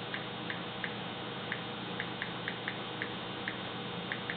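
About a dozen light, irregularly spaced clicks, the taps of a phone's touchscreen keyboard, over the steady hiss and low hum of a switched-on amplifier and speaker with nothing playing yet.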